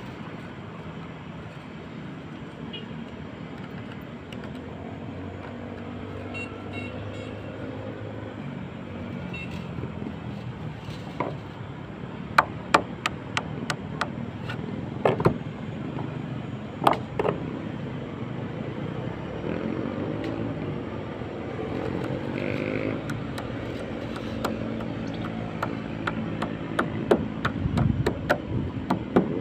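Steady road-traffic noise with vehicle engines rising and falling in pitch, and sharp clicks and taps from hand tools worked against the roof edge, clustered in the middle and again near the end.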